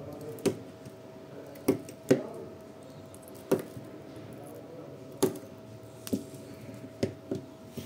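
Battery spot welder joining nickel strips to NiCd cells: about eight sharp snaps at uneven intervals, two of them in quick pairs, over a steady hum.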